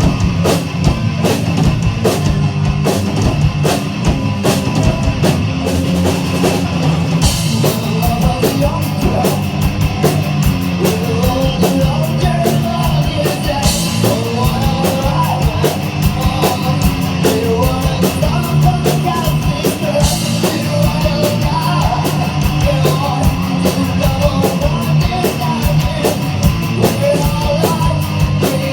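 Loud rock music, heavy-metal style, driven by a fast, steady drum kit. A wavering melodic line comes in about a quarter of the way through.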